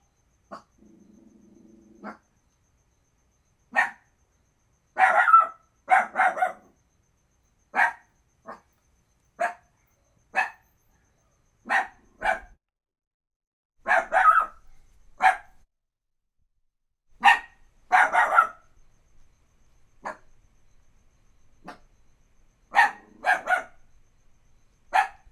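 Puppy barking over and over in short, sharp barks. Some barks come singly and some in quick pairs or clusters, a second or two apart, with a few longer pauses.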